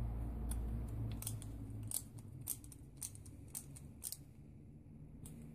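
A screwdriver and its bit holder being handled, giving a series of light, sharp clicks at irregular intervals of roughly half a second. Under the first two seconds there is a low rumble that then fades out.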